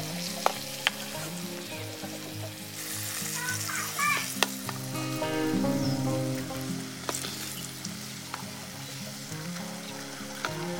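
Hot oil sizzling in a wok as fried balut eggs are lifted out, with a metal ladle clinking against the wok a few times.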